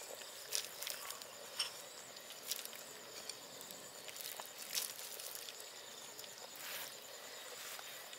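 Ground peanuts pattering softly as they are sprinkled into a pot of curry: a few scattered faint clicks over a steady soft hiss.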